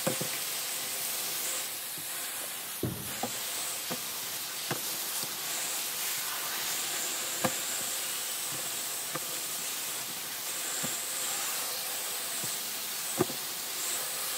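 Garden hose spray nozzle hissing steadily as the water jet hits slabs of pork belly and a plastic table, washing the curing salt off. A few sharp taps stand out now and then.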